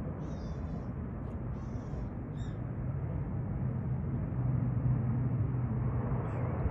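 Bombardier Q400 Dash 8 on approach: the low, steady drone of its twin Pratt & Whitney PW150A turboprops, growing louder after a few seconds as the aircraft comes closer. High bird calls sound over it several times in the first couple of seconds.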